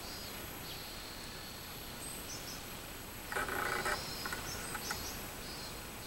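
Minmin-zemi (Robust cicada) singing, a steady high buzz with repeated pulsing notes. A brief louder, rougher sound of unclear source cuts in a little past halfway.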